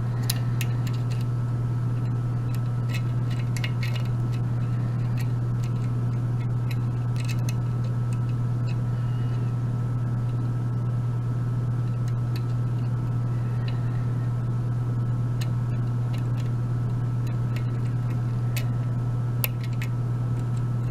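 Faint scattered metallic ticks and clicks of a hook pick lifting the pin stacks inside a Pfaffenhain euro cylinder lock, under a steady low hum.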